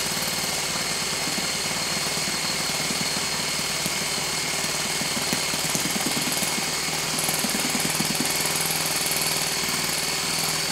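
Electric starter motor spinning over a model four-stroke glow engine: a steady whine over a fast, even chuffing from the engine, which does not catch. The owners put its failure to start down to very low compression, from either the piston ring or the valve.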